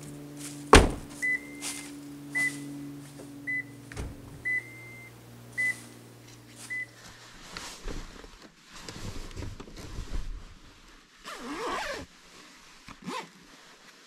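A sharp thump, then about six short, high electronic beeps roughly a second apart over a steady low hum that stops about seven seconds in. Rustling and handling noises follow.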